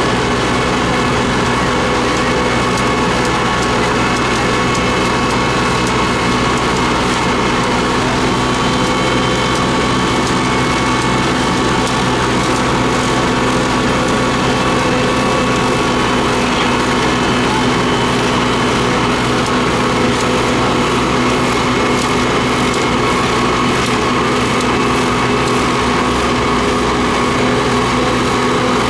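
Diesel engine of road-paving machinery running at a steady speed, an even engine drone with no change in pitch.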